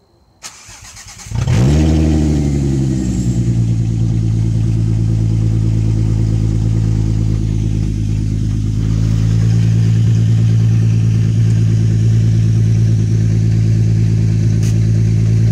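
Volkswagen Jetta GLI with a straight-piped exhaust starting up: a click, about a second of cranking, then the engine catches with a flare of revs that settles into a loud, steady idle.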